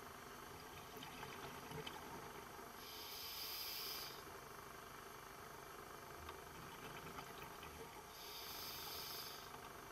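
Scuba diver breathing through a regulator underwater: two hissing breaths about five seconds apart, each just over a second long, over a faint steady hiss.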